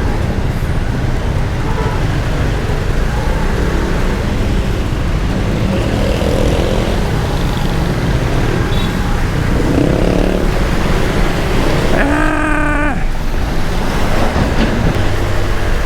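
Wind rushing over the microphone and a 125 cc scooter's engine running steadily while riding in the rain, with the throttle held open. A short pitched tone sounds about twelve seconds in.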